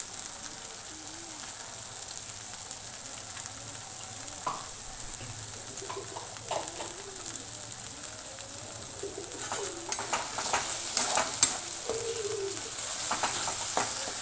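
Spiced masala paste sizzling steadily as it fries in a kadai. From about two-thirds of the way in, a spatula scrapes and stirs it against the pan in quick strokes.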